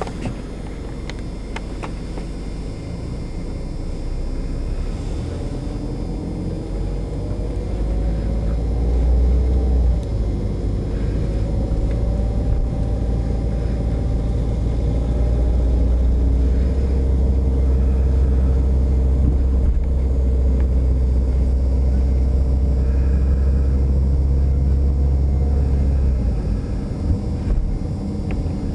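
Car engine and tyre rumble heard from inside a moving car, the engine note climbing slowly as the car picks up speed over the first dozen seconds, then holding steady. The low rumble eases near the end.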